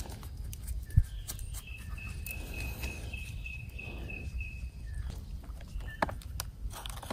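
A high, rapid chirping call repeats about four times a second from about two to five seconds in, over a low rumble on the microphone. Scattered clicks run through it, with a sharp knock about a second in.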